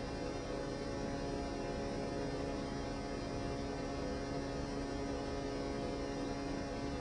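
A steady hum made of several held tones over a faint hiss, unchanging throughout.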